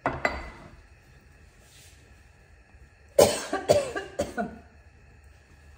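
A woman coughing several times in quick succession, about three seconds in, into her raised elbow; a short, fainter sound comes right at the start.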